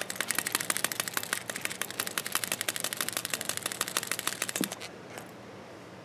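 Uni Alpha Gel shaker mechanical pencil shaken hard, its shaker mechanism rattling in a fast, even run of clicks, about ten a second, that stops abruptly about five seconds in. The shaker lock is on, so no lead advances.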